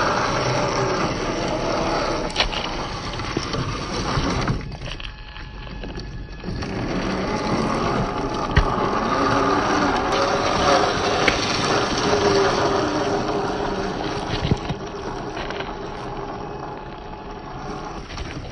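1/10-scale Traxxas TRX-4 RC crawler's electric motor and gears whining, the pitch rising and falling with the throttle, over the rough noise of the truck crawling across the terrain, with scattered small knocks. The sound drops away briefly about five seconds in.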